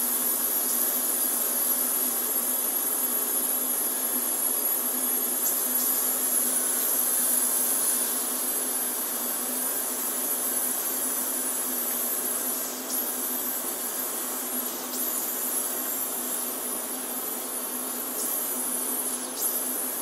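Several small electric RC helicopters flying together: a steady whir of rotors and motors with a constant low hum and high whines that waver in pitch as the craft manoeuvre, with a few faint ticks.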